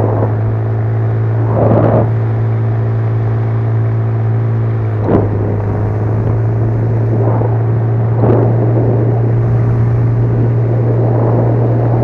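Small outboard motor pushing an inflatable boat, running at a steady speed with a constant low hum. A few brief soft knocks are heard over it, one of them sharper about five seconds in.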